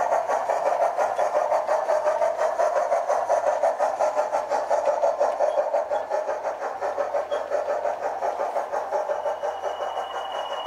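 Sound-fitted O gauge model of a Stanier Black 5 steam locomotive, its DCC sound decoder playing a steady rhythm of exhaust beats that slowly fades as the train pulls away.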